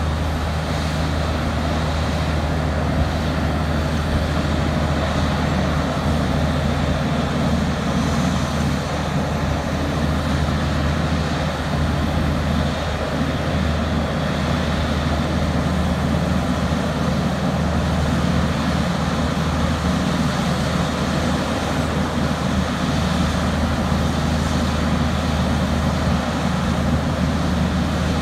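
Heavy mining machinery running steadily: the deep, even drone of the large diesel engines of a Terex RH170 front shovel excavator and the haul truck it is loading, with no distinct knocks or bangs.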